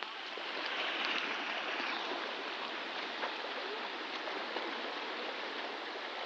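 Steady wash of swimming-pool water, with light splashing from a child swimming freestyle.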